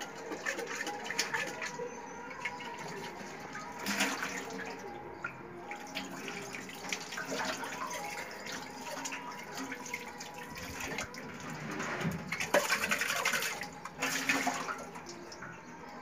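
Tap water running into a stainless steel sink and splashing as hands wash something under the stream, with louder splashes about four seconds in and again near the end.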